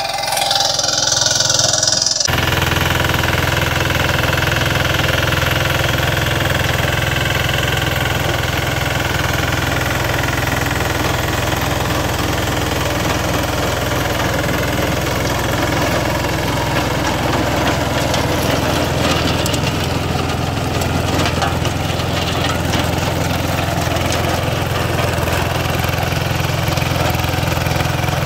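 A walk-behind power tiller's engine runs for about two seconds, then cuts off abruptly. A compact tractor's diesel engine takes over, running steadily under load while its rear rotavator churns the soil.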